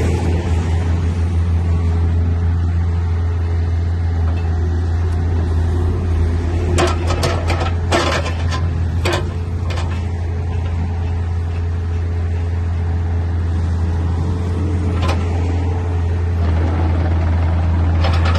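Case CX50B mini excavator's diesel engine running steadily. A short cluster of sharp metallic clanks comes about seven to ten seconds in.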